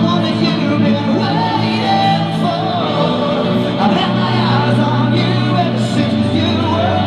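Rock band playing with a singer, the music loud and steady.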